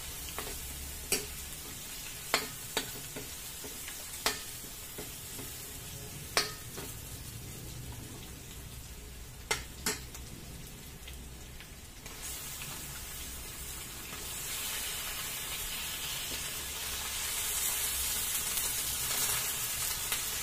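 Oil sizzling steadily in an aluminium wok as boiled pork belly (liempo) is deep-fried crisp. Sharp metallic clicks come several times in the first half as tongs knock the wok while lifting the pieces out. The sizzle grows louder in the second half.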